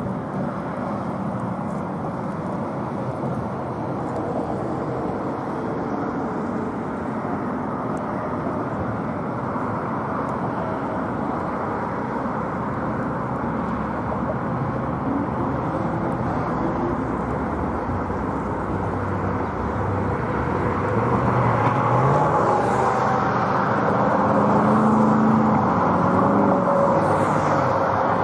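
Outdoor roar of a Boeing 777-300ER's GE90 jet engines on final approach, growing louder during the last third as the airliner comes closer, with pitch that rises and falls as it passes.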